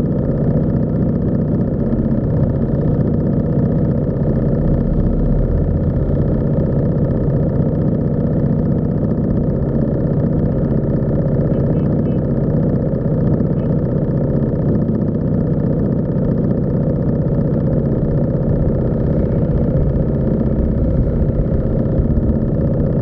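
A vehicle engine idling steadily close by: an even, unbroken low drone.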